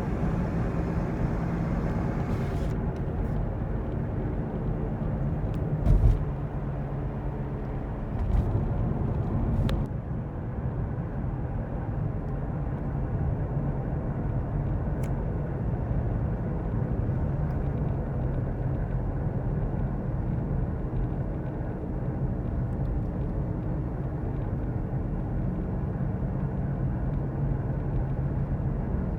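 Car's worn-out wheel hub bearing rumbling and droning while driving, a growl with a humming tone that swells and fades, heard from inside the cabin on the passenger side. Two short thumps, one about 6 seconds in and one about 8 seconds in.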